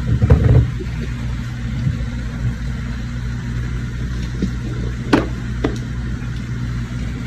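A lid clatters onto a cooking pan in the first half-second, over a steady low hum; two light clicks follow about five seconds in.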